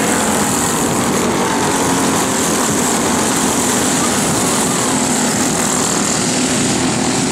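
Racing go-kart engines, small single-cylinders, running at speed on the track: a steady, loud buzzing drone with faint rises and falls in pitch as karts pass.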